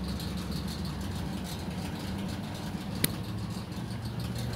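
A steady low engine hum, with one sharp click about three seconds in.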